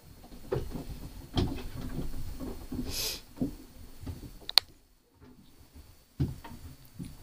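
Soft rustling and light knocks of someone shifting about in a small closet and handling a phone held close, with a short hiss about three seconds in and a single sharp click about four and a half seconds in.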